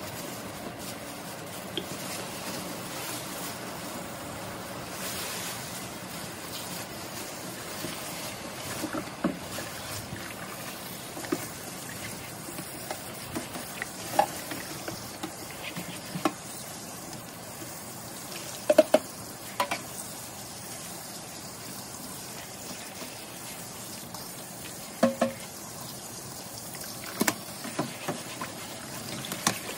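Aluminium mesh range-hood grease filters scrubbed with a sponge in a stainless steel sink of soapy water: a steady wet hiss of scrubbing and water, broken by scattered sharp knocks of the metal filters against the sink, the loudest about two-thirds of the way in.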